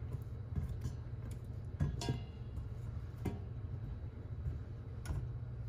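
Silicone spatula scraping and knocking against a stainless steel pot as butter is stirred to melt, giving a few scattered clinks, one about two seconds in ringing briefly, over a steady low hum.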